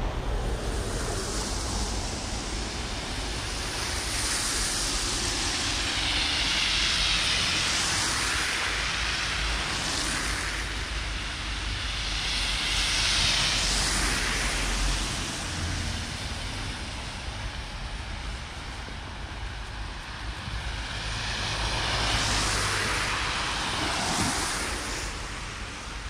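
Street traffic: several vehicles pass one after another, their tyre and engine noise swelling and fading over a few seconds each, over a steady low rumble.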